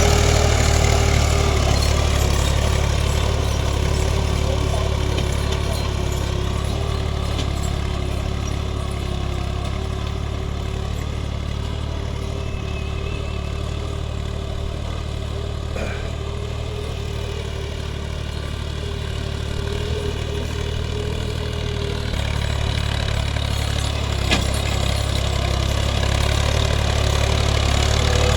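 Ghazi 65 hp tractor's diesel engine running steadily. It grows a little quieter toward the middle and louder again near the end.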